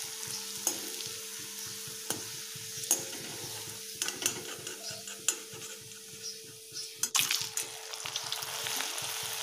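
Chips frying in hot oil in a steel wok, a steady sizzle, with a slotted spoon stirring them and tapping against the pan now and then; a louder scrape about seven seconds in.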